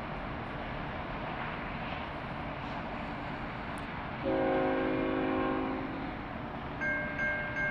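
Locomotive air horn sounding one long chord about four seconds in, over the steady rumble of an approaching train. Near the end a bell starts ringing at about two strokes a second.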